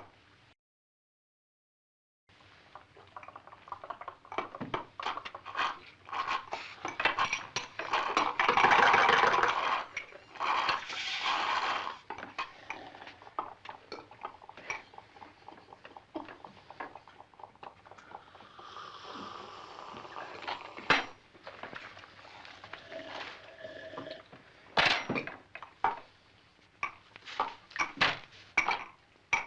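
Soda sucked up through a straw: a series of noisy slurps and gurgles of varying length, broken by sharp clinks, starting after a couple of seconds of silence.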